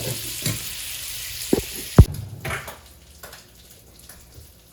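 Sweet Italian sausage sizzling in a frying pan while a utensil stirs it, with a few knocks against the pan. A loud sharp clack about two seconds in, then the sizzle cuts off, leaving a few soft clicks.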